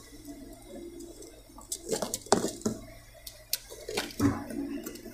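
Cardboard monitor box being handled and its tape slit with a utility knife. Low rustling, with a few sharp scrapes and knocks about two seconds in and again near four seconds.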